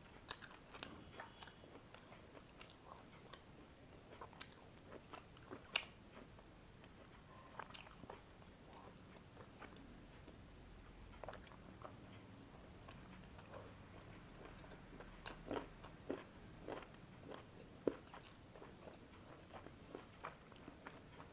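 A person chewing and biting food close to the microphone: irregular soft clicks and smacks of the mouth, with a few sharper clicks.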